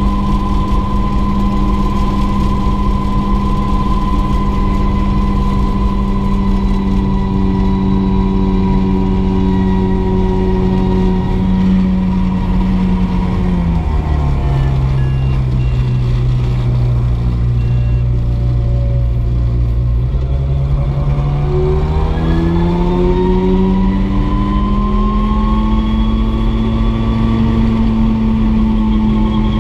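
Mosquito XET turbine helicopter's engine and rotor running, a steady hum with a turbine whine above it. A little under halfway through, the pitch drops and stays low for about eight seconds, then climbs back up to its earlier level.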